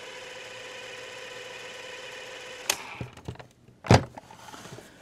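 Panasonic RQ-309S cassette recorder's tape-transport motor running with a steady whine. It stops with a click a little over halfway through, followed by a few small clicks and one loud mechanical clunk near the end. The speaker stays silent: the mechanism turns, but the recorder gives no audio output.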